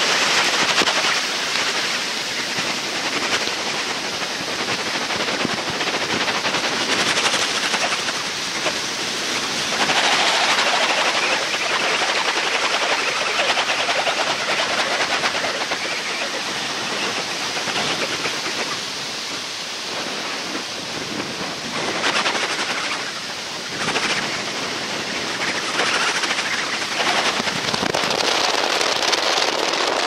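Muddy floodwater of the swollen Shimanto River rushing and churning, a loud steady noise with a crackling texture. It swells and eases a little now and then.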